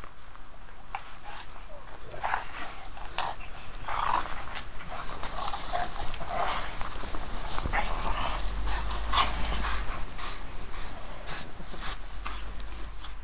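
Newfoundland dog making short, irregular vocal noises during rough play, mixed with scuffling in snow.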